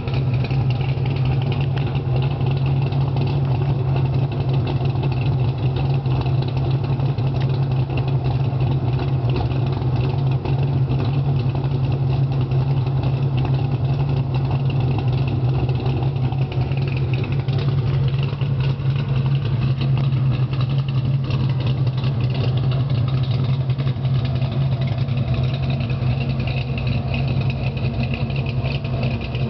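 Exhaust of a 700-horsepower pro-touring 1973 Pontiac Trans Am V8 idling steadily, with no revving.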